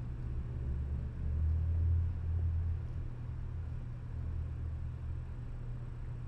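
A low, steady rumble that swells and eases, loudest about one and a half to two and a half seconds in.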